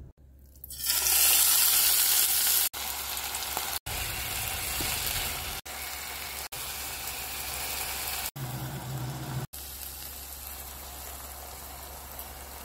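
Chopped chicken thigh frying in oil in a pan, a steady sizzle heard in several short clips joined by abrupt cuts. It is loudest about a second in and softer toward the end as rice and water go in.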